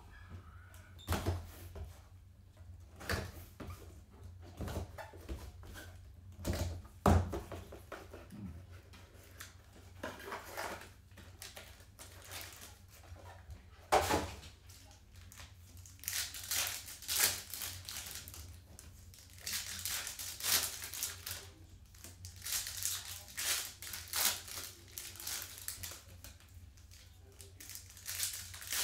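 Foil trading-card pack wrappers crinkling and being torn open by gloved hands, in repeated crackling bursts through the second half. Earlier there are sharp knocks and clicks of cards and packs being handled on a table.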